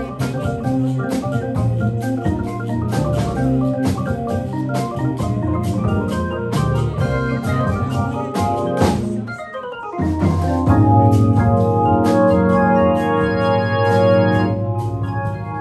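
Live jazz band with an electronic stage keyboard on an organ sound leading over bass and drums: busy runs of notes, then about nine seconds in a downward sweep and a brief drop-out, after which the organ holds sustained chords.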